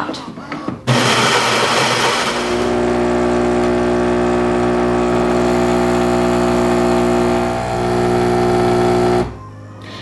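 Philips 5400 LatteGo super-automatic espresso machine brewing a single espresso: a steady electric hum from its pump, rougher and hissier for the first second or so. It stops suddenly about a second before the end.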